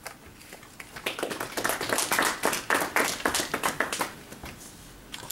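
Audience applauding, the clapping starting about a second in and dying away about three seconds later.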